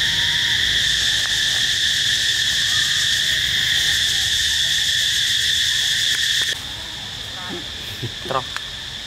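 Steady, loud droning of forest insects in two high pitched tones, which cuts off suddenly about six and a half seconds in. After that there is quieter forest background with a few short wavering animal calls near the end.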